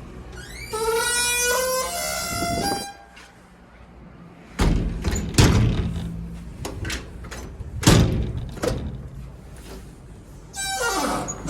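Iron door's hinges creaking in a long pitched squeal whose tones waver and glide. Then come two heavy metallic bangs about three seconds apart, with smaller knocks after them. The creaking starts again near the end.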